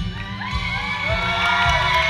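Audience cheering and shrieking over the song's instrumental accompaniment, starting just after a held sung chord breaks off.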